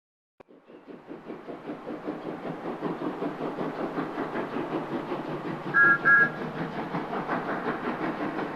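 Steam locomotive puffing, starting about half a second in and building into steady rhythmic chuffs, with two short two-note whistle peeps about six seconds in.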